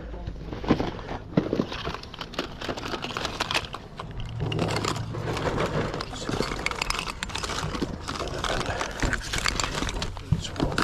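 Rustling and crinkling with many small, irregular clicks and knocks.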